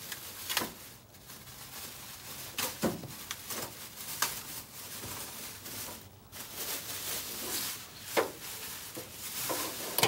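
Plastic protective wrapping crinkling and rustling as it is pulled off a car's wiring harness, with scattered light clicks and knocks every second or two.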